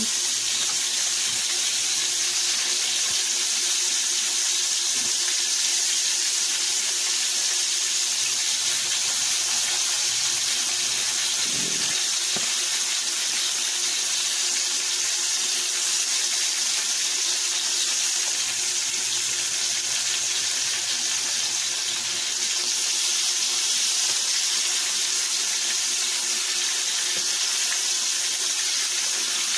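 Floured chicken liver frying in olive oil in a pan: a steady high sizzle.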